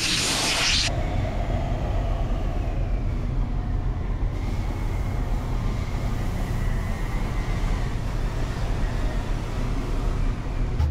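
Compressed-air blow gun hissing loudly against a sanded surfboard, cutting off suddenly about a second in. After that there is a steady low rumble.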